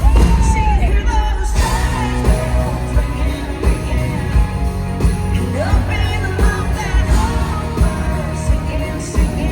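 Live country-pop song performed by a full band: a woman sings the lead vocal over steady bass and drums.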